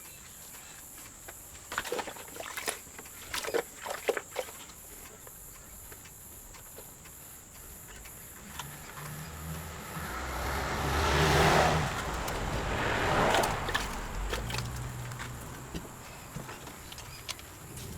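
Plastic safety glasses clattering and clicking as they are handled, then a few seconds of running, splashing water as they are rinsed. A cricket chirps steadily in the background.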